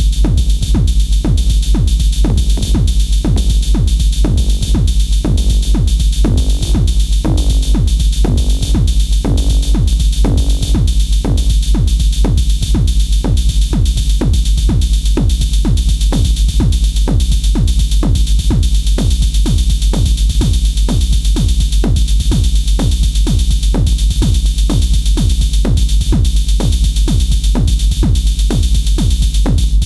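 Electronic dance music with a fast, steady drum-machine beat and heavy bass, and a synth melody line briefly audible about a third of the way in.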